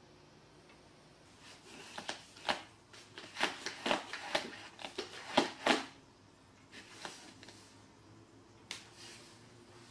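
Small cardboard box crackling and scraping as a cat pushes and squeezes itself into it: a dense run of sharp crackles and scrapes lasting about four seconds, then a few scattered ones.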